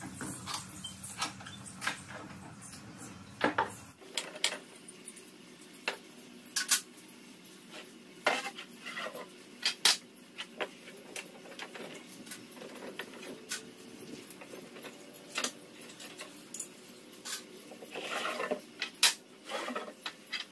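Metal woodworking clamps being unscrewed and taken off clamped wooden boards: scattered sharp metallic clinks and knocks, some ringing briefly.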